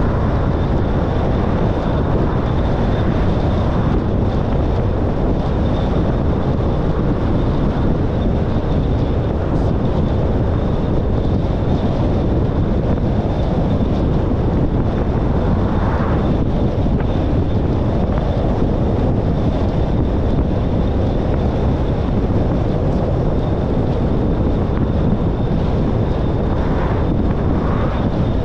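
Car driving steadily: continuous road and engine rumble, heavy in the low end, with a faint steady high-pitched tone over it and two brief small swells, one about halfway through and one near the end.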